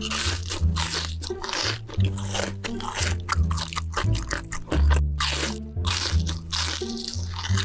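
Repeated loud crunching as bites are taken into crispy deep-fried food and chewed, with background music carrying a sustained bass line underneath.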